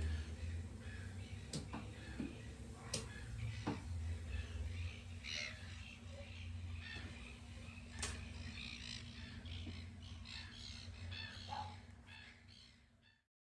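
Birds calling outdoors in scattered short chirps over a low steady rumble, with a few sharp clicks; the sound fades out near the end.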